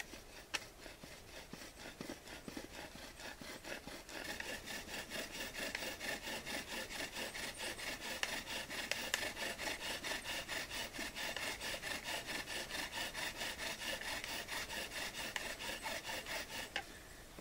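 Bow drill in use: a hazel spindle spun back and forth by a bow in a spruce hearthboard, making a rapid, even rubbing rasp with each stroke. From about four seconds in it grows louder with a squeaky edge, and it stops shortly before the end. This is the burning-in of the spindle's hole in the hearthboard.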